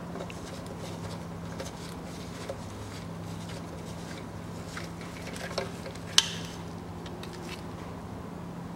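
Light metallic clicks and taps of a socket on a long extension, turned by hand as the bolts of a stamped-steel engine oil pan are threaded in, with one sharper click about six seconds in. A steady low hum runs underneath.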